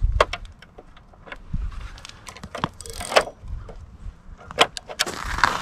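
Ice-fishing tip-up being set over the hole by hand: a string of sharp plastic clicks and knocks as the flag is bent down and locked. Brief scraping rustles come about three seconds in and again near the end.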